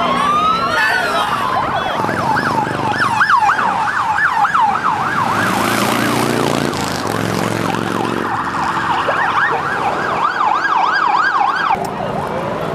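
Emergency vehicle siren: a rising wail at the start, then a fast yelp sweeping up and down about four times a second, which stops near the end. A low steady drone sits underneath.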